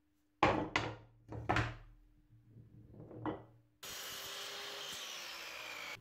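Several sharp wooden knocks, then a steady scraping noise for about two seconds that cuts off suddenly.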